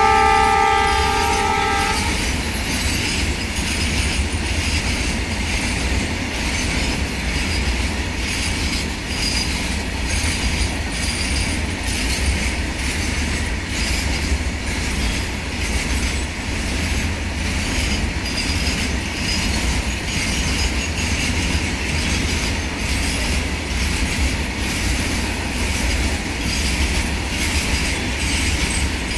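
Horn of the WDG-3A diesel locomotive sounding for about the first two seconds, then a long train of petroleum tank wagons rolling steadily past: a continuous rumble with the regular clatter of wheels over rail joints.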